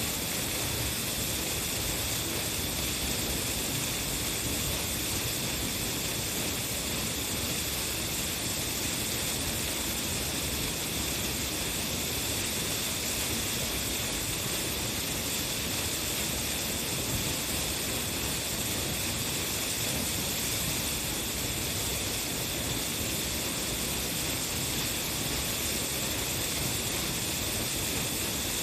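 A large waterfall: falling water making a steady, unbroken rush.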